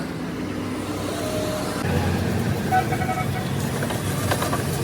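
An engine runs steadily with a low rumble that gets a little louder about two seconds in, with faint voices in the background.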